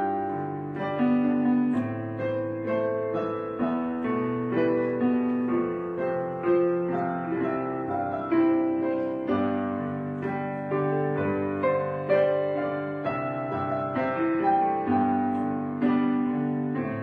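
Soft background piano music: a slow melody of struck notes, each fading away, over lower chords.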